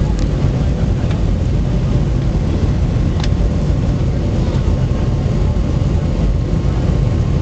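Steady roar of jet airliner cabin noise during the descent on approach: turbofan engines and airflow heard from inside the cabin, with a faint steady hum. There is one brief click about three seconds in.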